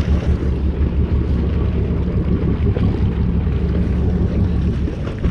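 A boat's engine running with a steady low drone, with wind noise on the microphone.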